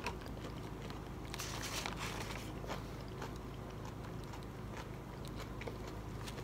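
A person chewing a mouthful of food, with soft crunching that is strongest about a second and a half in, over a steady low hum.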